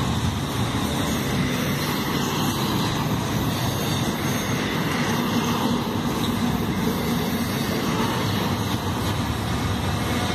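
Double-stack container freight train rolling past at close range: a steady, loud noise of steel wheels running on the rails.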